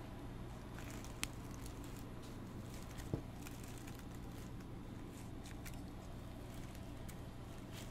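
Cleaver slicing through a block of mozzarella cheese on a plastic cutting board: quiet cutting with a couple of sharp taps, about a second and three seconds in, as the blade meets the board. A steady low hum runs underneath.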